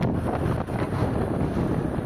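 Wind buffeting the microphone over the steady road noise of a car driving along a highway.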